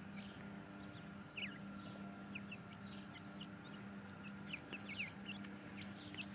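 Gray francolin chicks peeping: many short, high chirps, scattered at first and coming thicker about halfway through, over a faint steady hum.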